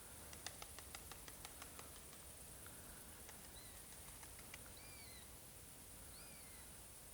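Faint bird chirps: three short high calls, each rising then dipping, after a run of light clicks in the first two seconds, over a steady high hiss.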